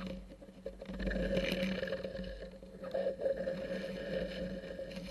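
Steady low mechanical hum over a deep rumble, heard underwater.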